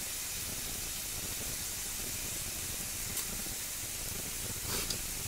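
Frozen pork belly sizzling on an electric grill pan: a steady hiss, with a couple of brief pops near the end.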